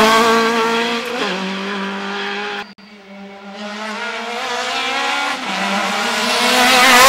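Rally car engine at high revs passing close by, its pitch dropping as it goes away. After a sudden cut, a Citroën C2 rally car approaches with its engine revving higher and louder, easing off briefly near the end before climbing again.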